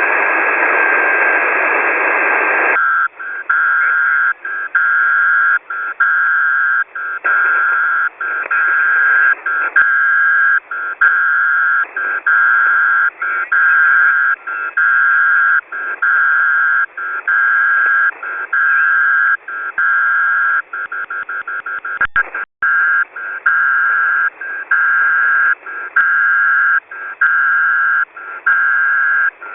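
Shortwave radio static for the first few seconds, then a Morse code (CW) signal: one steady beep tone keyed on and off in dots and dashes, with a quick run of short dots about two-thirds of the way through.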